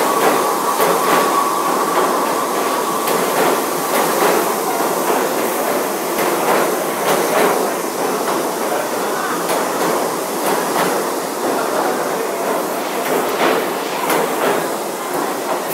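New York City subway train running past through an underground station: a steady rumble of the cars with repeated sharp clacks of the wheels over rail joints. A thin whine sounds at first and fades out about four seconds in.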